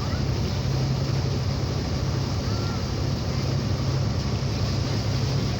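A boat's engine running at a steady low drone, under a constant rush of wind and water.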